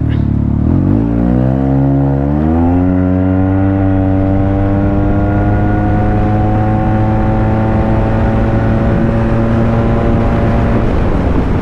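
Yamaha maxi-scooter engine pulling away from a standstill. The revs climb quickly for about two seconds, then hold nearly steady and creep up as the scooter gathers speed, as its continuously variable transmission takes up the drive, with wind noise growing. The revs ease slightly near the end.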